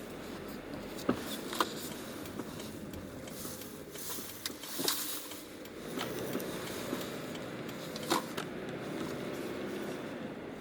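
A car's shock absorber making an abnormal knocking noise: a few sharp knocks at irregular intervals over a steady background noise.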